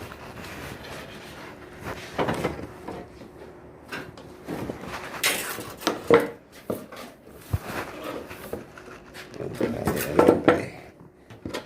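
Irregular knocks, clinks and scrapes from handling a sliding shower door and its metal fittings during a wire-tie repair.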